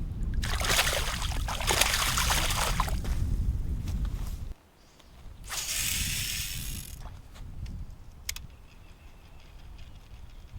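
Wind buffeting the microphone as a heavy low rumble that cuts off suddenly about four and a half seconds in. Two loud bursts of rushing hiss come in the first three seconds and again around the sixth second, and a sharp click follows near the end.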